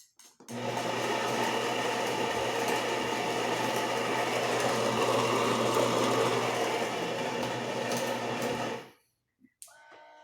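Coffee machine running with a steady mechanical buzz and low hum for about eight seconds, then cutting off.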